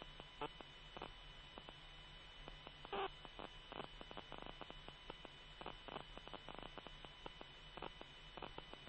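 Steady electrical hum and hiss on a radio channel between transmissions, with faint irregular crackling clicks and one slightly louder blip about three seconds in.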